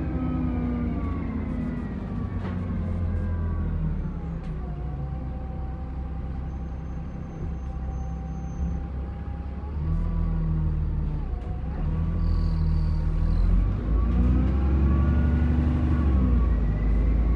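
Alexander Dennis Enviro400 Trident double-decker bus under way, its diesel engine droning with a turbocharger whine that rises and falls in pitch as the bus accelerates and eases off. It gets louder in the second half as the engine pulls harder.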